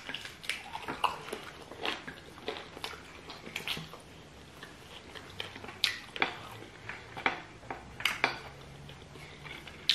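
Close-miked eating: biting and chewing chicken feet in stew, with wet smacking and sharp mouth clicks coming irregularly, one or two a second.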